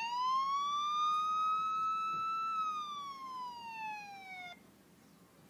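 Police siren sound effect: a single slow wail that rises in pitch, levels off, then falls and cuts off suddenly about four and a half seconds in.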